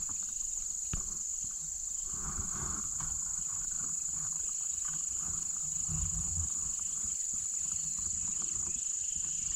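Steady high-pitched chorus of insects, unbroken throughout, with a low rumble and a few soft knocks underneath.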